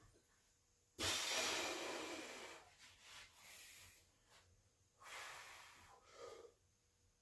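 A lifter's forceful breathing during a set of bench press: a long hissing exhale about a second in and a shorter one about five seconds in.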